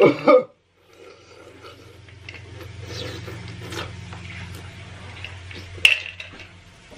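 Ice cubes clinking in a drinking glass as it is handled and drunk from, light scattered clinks with one sharp clink near the end, over a steady low hum.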